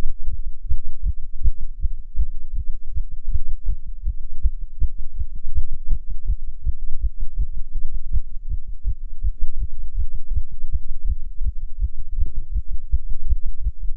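Fast human heartbeat: a quick, even run of low thumps. The heart rate is raised by nicotine while smoking a cigarette.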